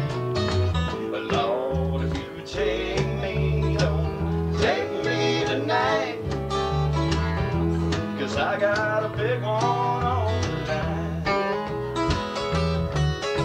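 A live country band plays an instrumental passage. Bass guitar notes change under strummed acoustic guitars, and a lead line slides and bends in pitch.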